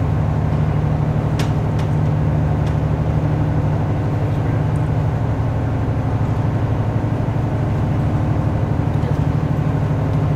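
Cruise boat's engine running with a steady low drone, heard from inside the passenger cabin.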